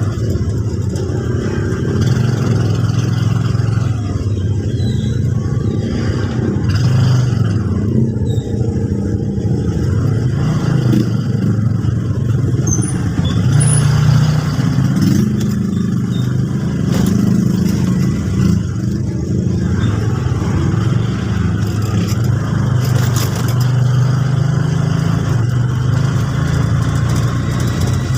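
A passenger vehicle being driven: a steady engine drone with road noise, the engine note rising and falling as it speeds up and slows down.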